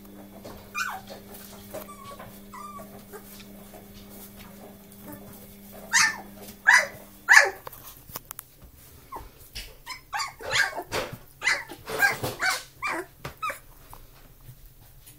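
Old English Sheepdog puppies yapping in short, high calls: a few faint ones at first, three loud ones about six seconds in, then a quick run of yaps from about ten seconds in.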